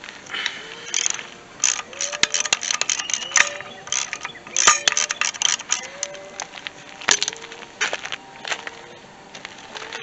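Ratchet wrench clicking in short, irregular runs with metal clinks as the 15 mm bolts holding the idler pulley on a Chevrolet LS water pump are loosened.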